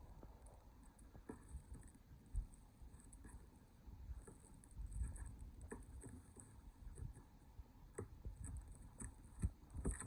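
Faint, scattered taps, scratches and scrapes of a cardboard shipping box being worked open by hand.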